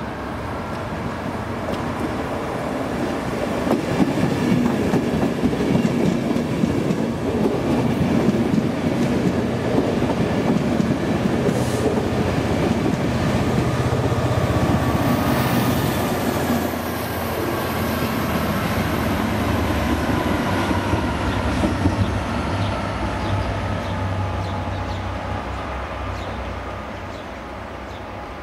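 A locomotive-hauled passenger train, Mk4 coaches with Class 67 diesel 67010 at the rear, running past close by, its wheels clattering over the rail joints and pointwork. The sound swells about four seconds in, stays loud while the coaches pass, and fades near the end as the train draws away.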